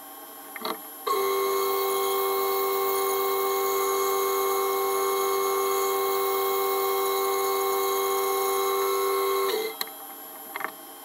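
Bandsaw cutting through a thick cedar block along a curved line, giving a steady multi-tone whine that starts suddenly about a second in and stops near the end, over the machine's quieter running hum. A short knock comes just before the cut, and a few light clicks after it.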